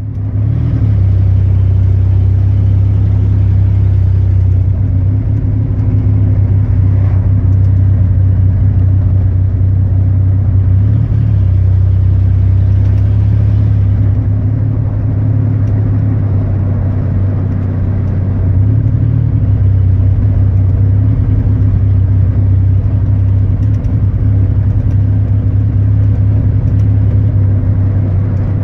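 Chevrolet 4.3-litre V6 engine running steadily with a misfire. Its pitch lifts briefly twice, about eleven and nineteen seconds in.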